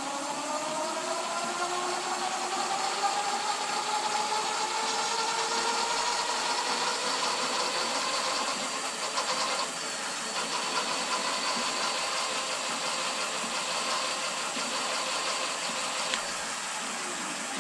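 Electric bike's rear hub motor, run by a KT 30 A controller, spinning the wheel free under throttle. It makes a whine that rises in pitch as it spins up, then holds steady, which the owner calls a turbine noise. The whine briefly dips about ten seconds in.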